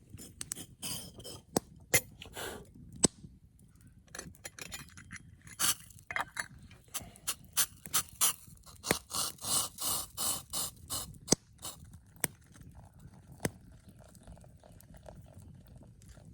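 Short scrapes and rustles in quick runs, with sharp clicks and knocks among them, from about half a second in until about thirteen seconds in.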